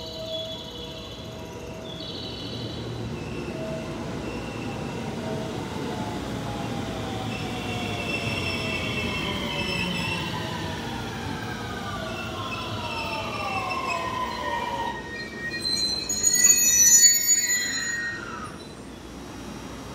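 JR West 223-2000 series train braking into a station. The whine of its Mitsubishi IGBT three-level VVVF inverter comes as several tones that fall steadily in pitch as it slows, over rumbling wheels on rail. About fifteen seconds in, a loud high-pitched brake squeal lasts a few seconds: these first-batch cars cannot brake electrically down to a stop, so regenerative braking drops out and the friction brakes take over.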